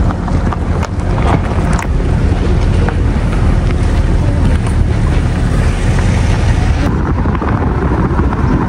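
Car driving along a mountain road: a steady low rumble of road and engine noise, with wind buffeting the microphone and a few light knocks in the first few seconds.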